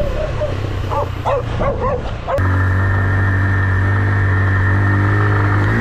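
Motorcycle engine of an AKT TT DS 200 running on a dirt trail, with a dog barking several times in the first two seconds. About two and a half seconds in, the sound changes abruptly to a steady, even engine hum.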